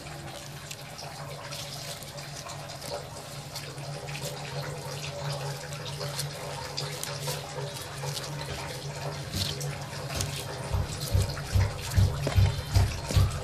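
Crackly rustling of chopped leafy greens being handled and lifted by hand on an aluminium tray, over a steady low hum. Near the end a regular low thump, about twice a second, comes in.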